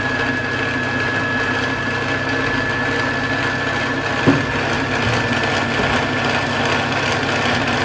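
Singer M1605 sewing machine's motor running steadily under the foot pedal, driving the bobbin winder to wind thread onto the bobbin, with a steady high whine. A brief knock about four seconds in.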